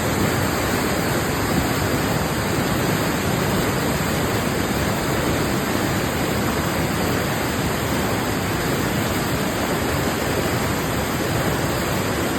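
The Saane river running high and fast: a loud, steady rush of churning white water.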